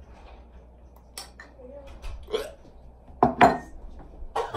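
A few short clinks and knocks of a metal spoon against a small ceramic bowl, mixed with throat sounds as a spoonful of water is swallowed; the loudest pair comes about three seconds in.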